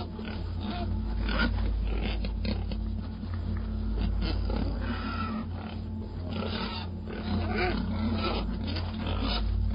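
Pigs grunting and squealing in irregular calls over a steady low hum.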